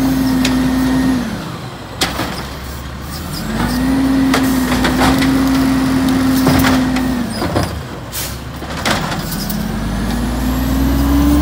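Automated side-loader garbage truck's diesel engine revving up and holding to power the hydraulic arm as it dumps and sets down a wheeled plastic recycling cart. The engine drops back after about a second, rises again for a few seconds in the middle and once more near the end, with sharp knocks and clunks of the cart and arm in between.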